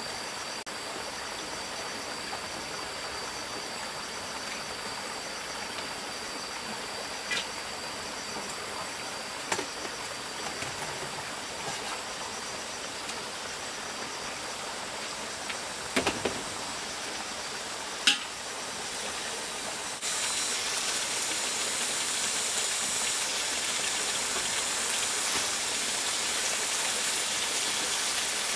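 Greens frying with a steady hiss in a steel wok over a wood fire, with four sharp clanks of a metal spatula against the wok; the sizzling grows louder about two-thirds of the way through.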